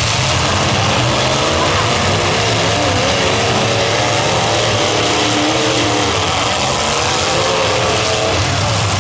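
Several demolition derby cars' engines running and revving, with pitch wavering up and down over a steady wash of noise.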